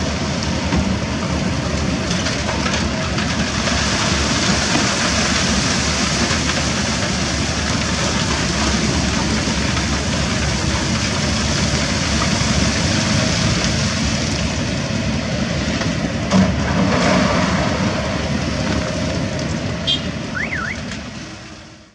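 Kobelco SK200-10 hydraulic excavator's diesel engine running steadily under load as it swings and dumps rock into a dump truck, with a sharp clatter about 16 seconds in. The sound fades out near the end.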